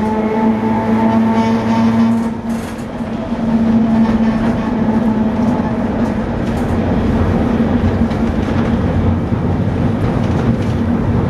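Vintage wooden tram running, heard from inside the passenger car: a steady hum over a continuous rumble.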